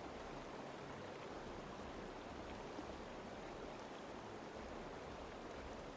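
Faint, steady rushing hiss.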